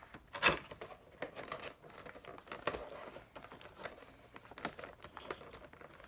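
Clear plastic packaging crinkling and rustling as a Funko Pop vinyl figure is unwrapped and pulled out of its cardboard window box, with irregular small clicks and knocks. The loudest crackle comes about half a second in.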